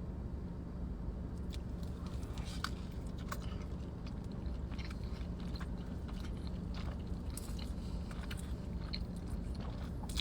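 A person chewing and biting food close to the microphone, with small wet mouth clicks starting about a second and a half in, over a steady low hum.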